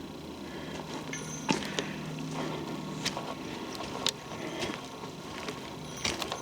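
Footsteps of a person walking on a forest trail, sharp footfalls landing about once a second. A steady low hum runs underneath and fades out about halfway through.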